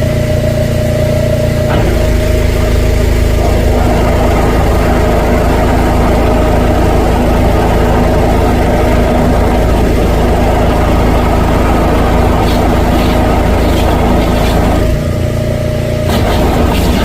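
Drain jetter engine running steadily, its note changing about two seconds in and dipping briefly near the end.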